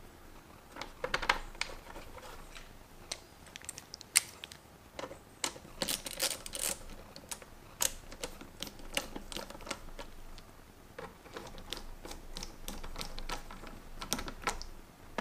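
Hand screwdriver driving screws into a generator's plastic shroud, with scattered light clicks and ticks of the tool and the plastic being handled.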